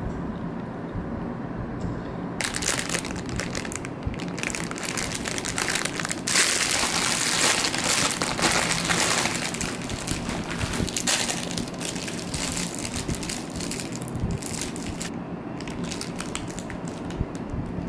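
A paper bakery bag with a plastic window crinkling and rustling as it is handled and opened. It starts a couple of seconds in, is loudest in the middle, and thins out near the end.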